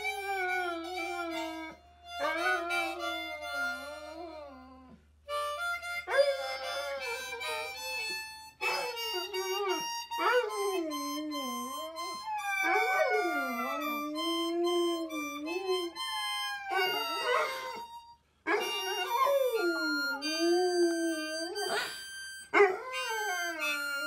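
Harmonica playing held chords while dogs howl along in long, wavering howls that rise and fall in pitch. There are short pauses between phrases, about five seconds in and again past the middle.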